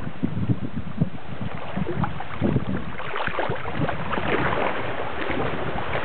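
Water sloshing and splashing around legs wading through a shallow river, with wind buffeting the microphone as a low rumble. The splashing grows brighter and busier from about halfway through.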